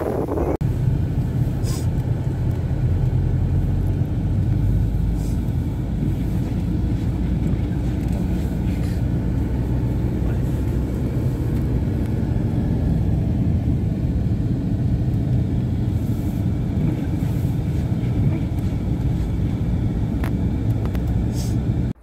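Car cabin noise while driving on a snowy road: a steady low rumble of engine and tyres, with a few faint ticks now and then.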